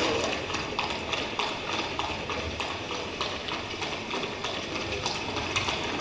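Sound effect of horse hooves clip-clopping in an even walking rhythm, about three hoofbeats a second.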